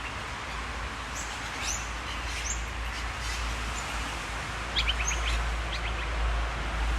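Birds chirping outdoors: a few short high chirps, then a quick run of short notes about five seconds in, over a steady background hiss and low rumble.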